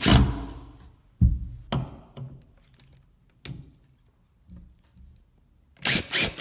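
Cordless drill with a Phillips bit run in short bursts on the screws of a steel closet top rail: sharp clattering knocks that ring on, a quick cluster at the start and another near the end with single knocks between, as the bit stops and jumps out of each seated screw head.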